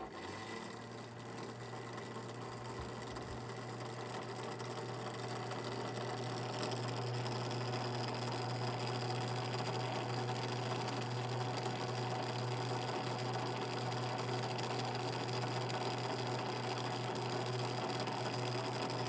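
RV roof-hatch exhaust fan switched on with a click, its motor humming and building up over the first several seconds to a steady drone with a whine, measured at about 60 dB. The fan is so noisy after a factory repair that the owner finds it unusable.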